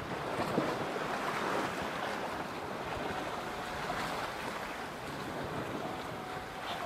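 Wind and sea aboard a sailing yacht under way: waves washing and water rushing past the hull, with wind buffeting the microphone, a steady rushing noise.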